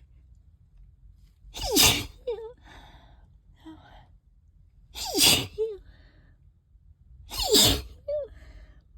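Three loud allergy sneezes from a person in a sneezing fit, about three seconds apart. Each has a falling pitch and is followed by a short, soft vocal sound.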